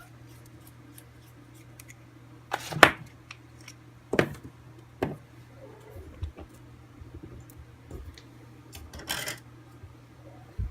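Small hand tools and metal parts being handled on a workbench, giving a few sharp clicks and knocks, the loudest about three seconds in, and a longer scrape near the end. A steady low hum runs underneath.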